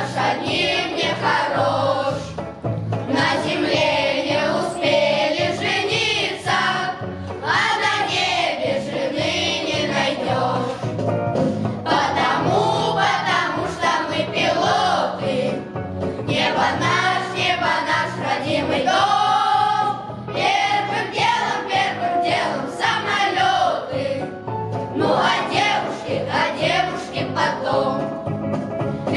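Children's boys' choir singing a song in unison, phrase after phrase, with short breaths between phrases.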